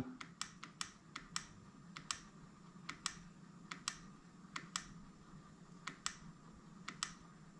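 Faint, quick clicks of a push button being pressed over and over, about three a second, stepping the Dakota Digital gauges' low-voltage warning setting upward one tenth of a volt at a time.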